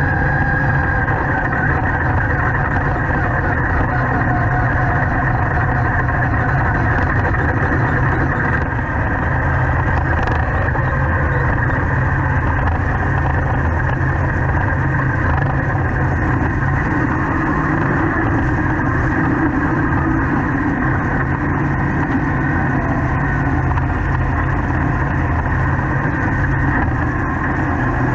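Dirt late model race car's engine idling steadily, with no revving.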